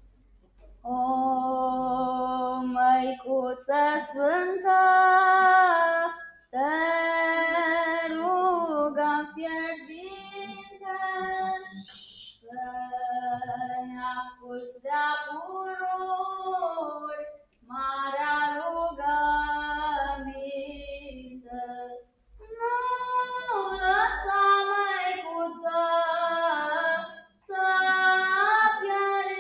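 A child singing a folk song solo and unaccompanied, in phrases of held notes that bend in pitch at their ends, with short breaks for breath between them.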